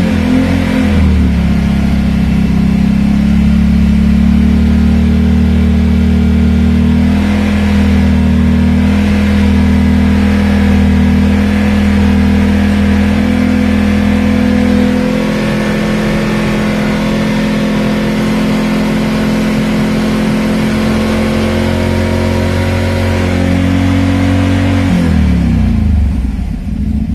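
Non-turbo side-by-side engine with a pretty loud exhaust revved up and held steady at high RPM, aiming for about 5,000 RPM, for over twenty seconds, then dropping back toward idle near the end.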